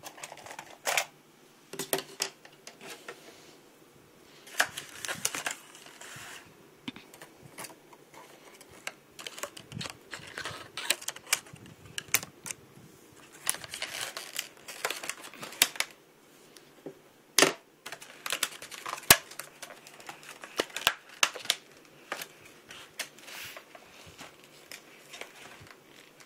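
Clear hard-plastic blister packaging being pried, bent and pulled open by hand: irregular crackling, clicking and rustling, with two sharp snaps about a second and a half apart past the middle.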